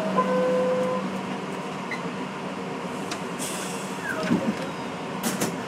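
R62A subway train running slowly in a tunnel: a steady rumble, with a brief steady tone in the first second, a short hiss about three and a half seconds in, and a few sharp clicks later on.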